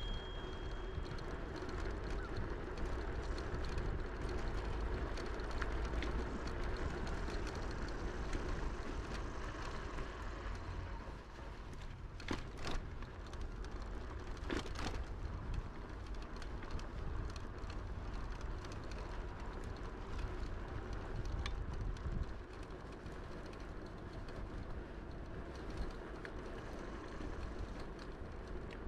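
Steady rolling noise of a Tern HSD electric bike riding along a paved path, with a low rumble of air on the microphone. Two sharp clicks come about halfway through.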